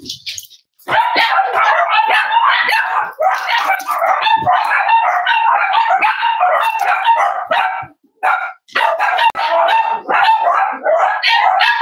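Cavalier King Charles Spaniels barking in a near-continuous, overlapping run, breaking off briefly about eight seconds in before starting again.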